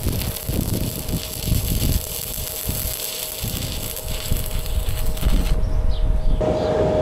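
Stick-welding arc crackling and hissing, with gusting wind buffeting the microphone; the arc stops about five and a half seconds in. A steady hum runs underneath and grows louder near the end.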